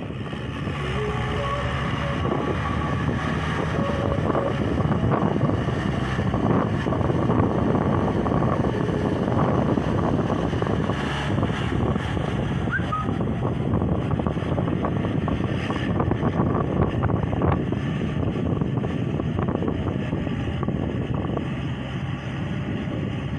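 Kubota L4018 tractor's diesel engine running steadily under load while plowing a wet rice paddy.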